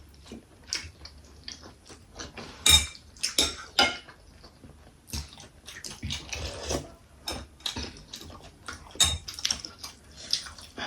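Cutlery clinking and scraping against plates during eating, a scatter of irregular clicks with a few sharper clinks about three seconds in and again about nine seconds in.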